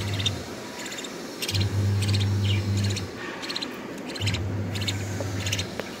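Budgerigars chirping in short, buzzy bursts, about every half second, over a low steady hum that starts and stops in stretches of a second or two.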